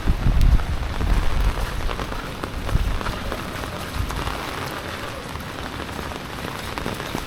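Steady rain falling, with many small drop ticks and a few low thumps in the first second.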